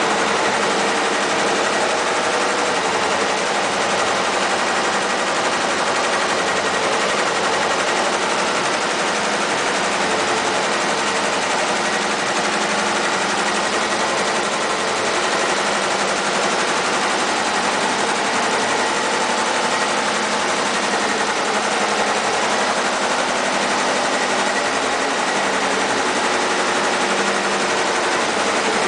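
SWF multi-head commercial embroidery machine stitching: a steady, rapid mechanical clatter of the needle heads running.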